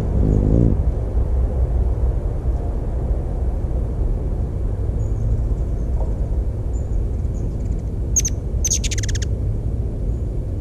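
Ruby-throated hummingbird chip calls: one sharp, very high chip, then a quick run of several more about a second later, over a steady low rumble. The bird's wings hum briefly as it hovers at the start.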